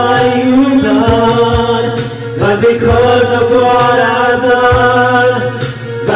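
Several men singing together into karaoke microphones over a backing track, holding long drawn-out notes.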